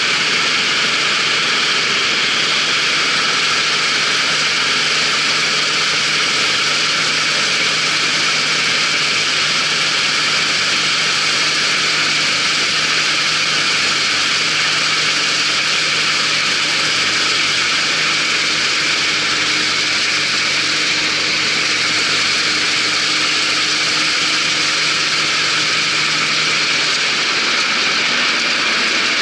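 Claas Dominator 88 combine harvester running steadily: a constant, loud mechanical din with a steady low hum beneath it, unchanging throughout.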